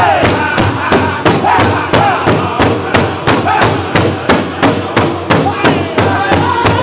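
Powwow big drum struck in unison by several drummers with drumsticks, a steady beat of about three strikes a second. The drum group's singing carries over the beat and grows stronger near the end.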